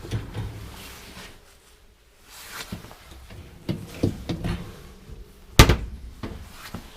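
A pull-out pantry cabinet and closet doors being opened and shut: scattered light knocks and rattles, then one sharp bang about three-quarters of the way through.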